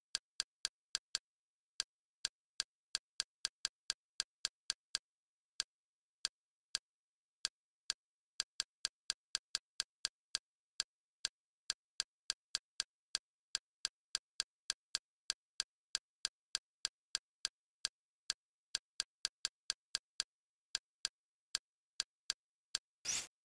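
Kodi's menu navigation click sounds, one short click per step as the cursor moves down a list, at an uneven pace with quick runs of several a second and short pauses. Near the end a brief, fuller interface sound marks an item being selected.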